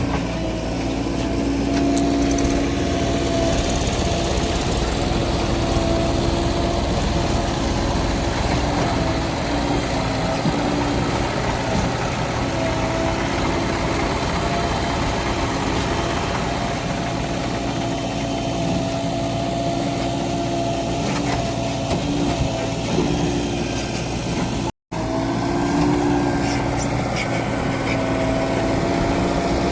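Diesel engine of a tractor or backhoe running steadily under load, with a humming whine that comes and goes. The sound cuts out for a moment about five seconds before the end.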